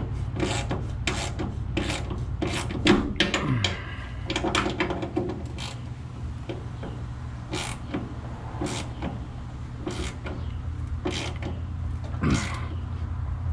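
Hand tools working on the steering box mounting bolts: irregular metallic clicks and short scraping strokes as the bolts are tightened, over a steady low hum.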